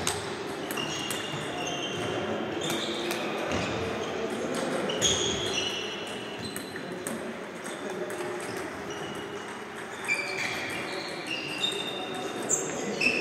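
Table tennis balls ticking off tables and bats in a rally, with more ball ticks from nearby tables, over a background murmur of voices in a large, echoing sports hall.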